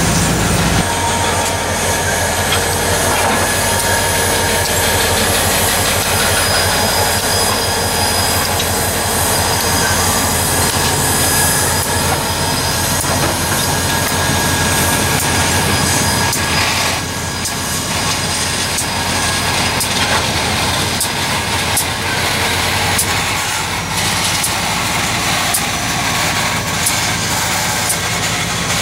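A lashup of EMD diesel locomotives passing close by, their two-stroke engines running, with steel wheels clattering over the rail.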